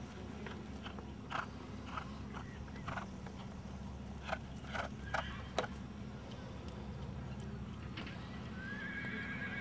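A ridden Australian Stock Horse walking on turf: a scatter of short, irregular hoof and tack knocks over a steady low rumble. Near the end a horse whinnies, a wavering call.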